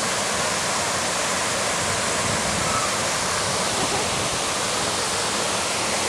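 Steady rush of water pouring and splashing into a koi pond.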